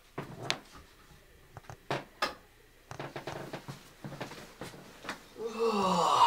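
Bedding rustling with a few small knocks as a person stirs under the covers, then near the end a long, loud yawn whose pitch slides downward as he stretches awake.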